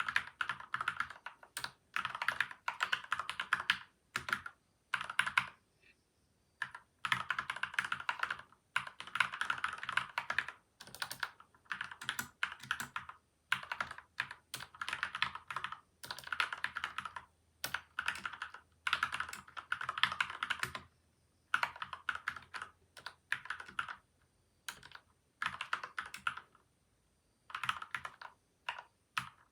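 Typing on a PCL87 mechanical keyboard fitted with lubed Gateron milky white and Outemu yellow switches, its case damped with tape and foam. Runs of rapid keystrokes come in bursts of a second or two, broken by short pauses.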